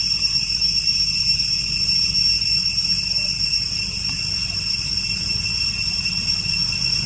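Steady high-pitched drone of cicadas, unbroken throughout, over a low rumble.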